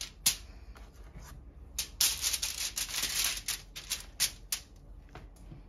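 Gloved hand rubbing margarine over a sheet of aluminium foil, the foil rustling and crinkling in quick irregular strokes, with a sharp click just after the start.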